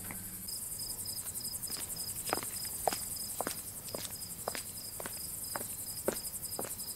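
Insects chirping in a steady chorus: a high chirp pulsing about three times a second over a thinner, faster trill above it. Scattered short clicks come in from about two seconds in.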